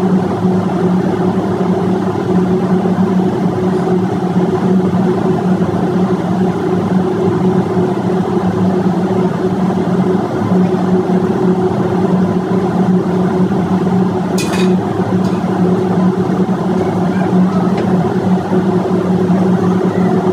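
Loud, steady drone of running machinery in an engine room, with a steady low hum running through it. A single sharp click comes about fourteen seconds in.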